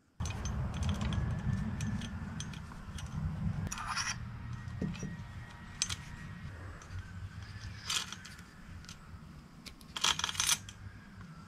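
Small metal engine parts being handled while the camshaft comes out of a Honda ATC 200S engine: scattered light clinks and scrapes over a low rumble, with a louder cluster of clinks about ten seconds in.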